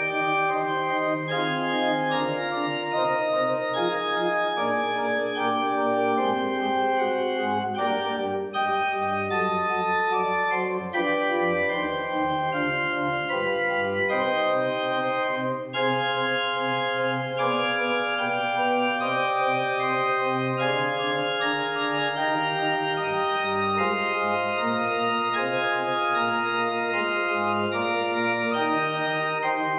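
Church organ played at a three-manual console: slow, sustained chords, each held for a second or two before moving to the next, at a steady volume.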